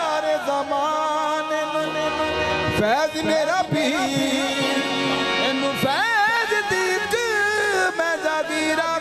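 Qawwali singing of a Qalandari dhamal: male voices singing ornamented, sliding melodic runs over steady harmonium chords.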